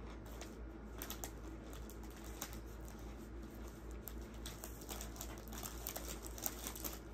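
Close-up crunchy chewing: irregular crisp crackles and clicks from crunching food in the mouth.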